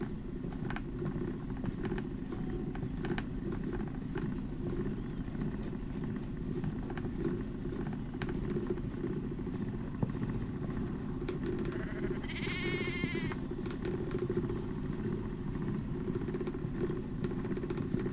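A steady low whirr throughout, with a single wavering sheep bleat about twelve seconds in.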